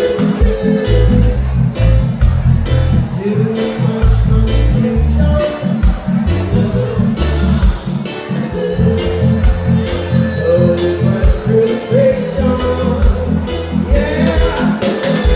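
Live band music with Latin-style rhythm: a heavy bass line, a steady drum beat and a melodic voice line over it.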